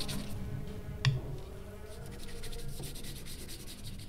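Quill pens scratching on paper, with one short knock about a second in; the scratching fades toward the end.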